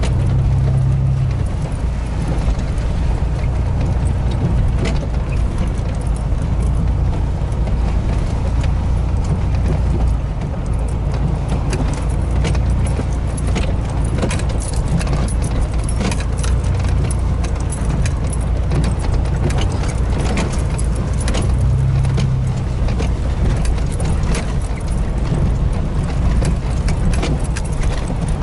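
Inside a vehicle's cab driving slowly over a rough, rutted dirt track: the engine runs steadily at low speed, with frequent clicks and rattles as the cab jolts.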